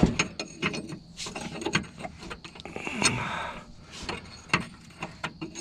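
Irregular metallic clicks and clinks of hand tools on the truck's steering box bolts, a ratchet wrench among them, as the bolts are worked loose.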